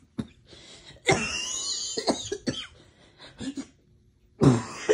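A person laughing hard in breathy, wheezing bursts that break into coughs. There is a long burst about a second in and a louder one near the end.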